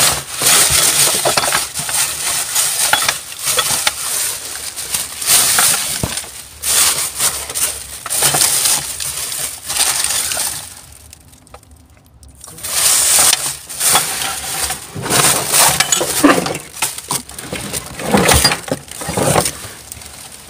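Plastic bags and plastic packaging crinkling and rustling as rubbish is rummaged through by hand, with occasional knocks and clinks of hard items, and a short lull about halfway through.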